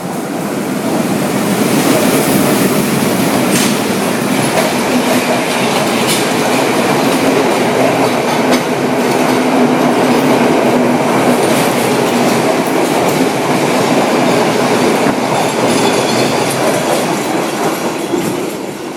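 Sri Lanka Railways Class M8 diesel locomotive passing close by with an intercity express, then its coaches rolling past with wheels clacking over the rail joints. The sound builds over the first two seconds, stays loud, and fades near the end as the last coach draws away.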